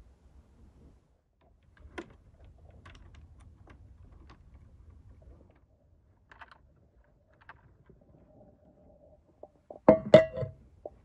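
Small clicks and knocks as a hand-cranked metal meat grinder is clamped to a wooden table. About ten seconds in, an enamel bowl is set down against it with a loud clatter and a short metallic ring.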